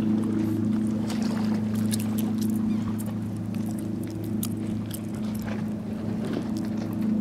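Steady low motor hum, like an idling engine, with small waves lapping and splashing against the pier.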